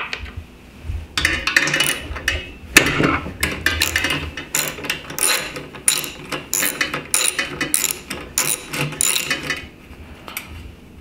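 Ratchet wrench clicking in quick runs of rapid ticks as it backs off the exhaust nuts holding a small engine's muffler. The clicking dies down near the end.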